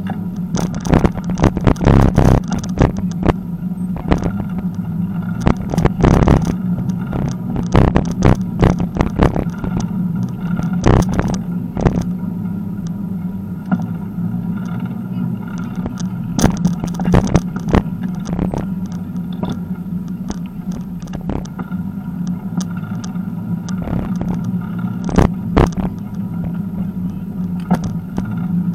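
A bicycle riding along an uneven asphalt path, heard from a camera carried on the bike: a steady low hum from the rolling, with frequent irregular knocks and rattles as the wheels hit bumps.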